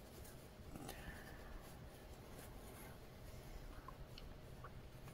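Faint rustling of cotton cloth being handled and pinned, with a few light ticks.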